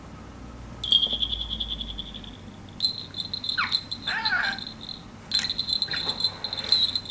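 Male budgerigar chattering in a rapid, buzzy, pulsing trill with short falling chirps, starting about a second in and coming in stretches. In among the chatter he mimics speech, the Kansai-dialect 'ねえへん'.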